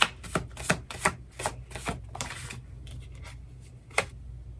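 Tarot cards being shuffled and handled on a table: a quick run of sharp card snaps and slides over the first two seconds or so, then a single snap about four seconds in.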